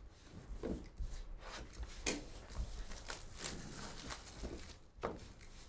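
Hands handling a cardboard trading-card box, with a few light taps and scrapes spread through.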